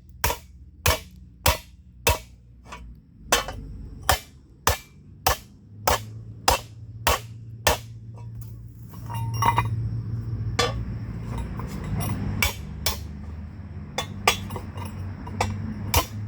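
Hammer blows on hot steel resting on a steel plate, each a sharp metallic clink, about every 0.6 s. Partway through, the strikes thin out for several seconds and a steady low hum comes up, then the hammering resumes near the end.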